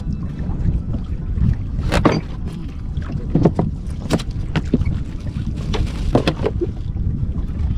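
Wind rumbling steadily on the microphone, with a scatter of knocks and clatter from things being handled in the fishing boat.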